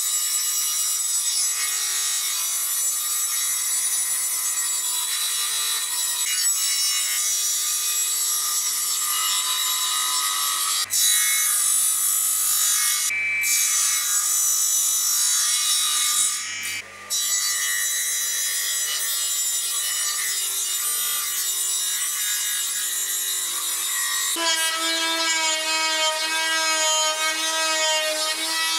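Benchtop table saw running and cutting through wood, a dense, loud whir, with brief breaks about 11 and 17 seconds in. Near the end the sound turns into a steady pitched whine.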